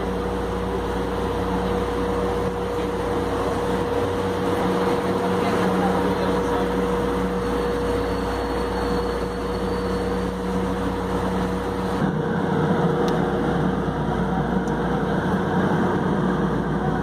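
Light rail car's interior sound: a steady electrical hum with two held tones over even noise. About twelve seconds in it changes abruptly to a rougher, untoned rumble.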